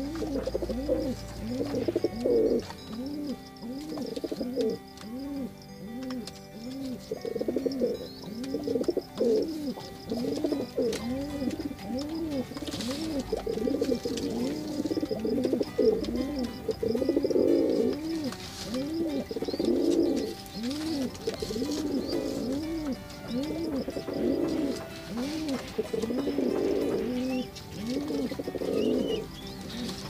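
Male domestic pigeon cooing over and over, a steady run of short, low coos that rise and fall in pitch in quick succession.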